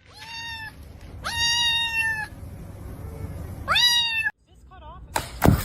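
A cat meowing three times, each meow rising at the start and the middle one the longest, followed by a faint short trill and a few sharp knocks near the end.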